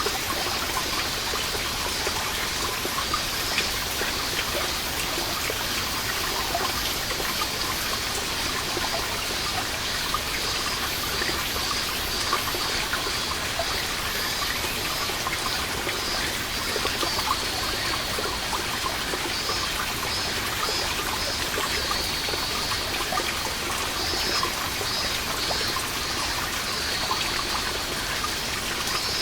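Water seeping from a moss-covered rock wall and falling in many small drops, a steady trickle of drips. Cicadas sing in pulses high above the water, more clearly in the second half.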